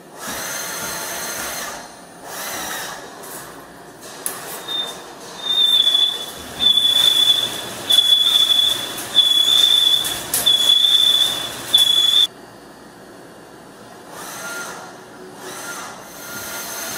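Gantry mill's spindle cutter machining metal under flood coolant. From about five seconds in, a steady high-pitched squeal comes in about six passes of a second or so each and stops abruptly around twelve seconds in, leaving a quieter cutting sound.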